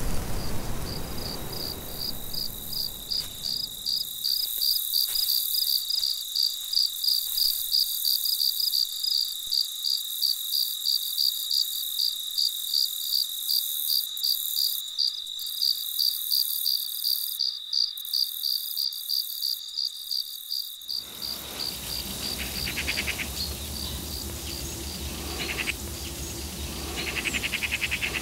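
Insect chirping in a steady rhythm of about three pulses a second, cricket-like and high-pitched. It fades after about twenty seconds as a low outdoor rumble comes in.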